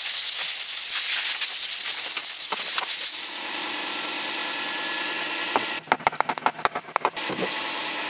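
A compressed-air blow gun hisses loudly as it blasts rust and dirt off the top of a steel gas tank around the fuel sender. It then drops to a quieter hiss, and about six seconds in comes a quick run of sharp metal taps from a hammer and chisel working at the sender's lock ring.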